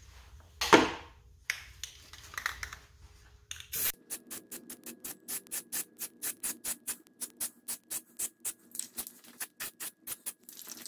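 Aerosol can of gloss enamel spray paint being shaken, its mixing ball rattling in a fast, even rhythm of about five clicks a second for some six seconds. It follows a few scattered knocks of handling in the first four seconds.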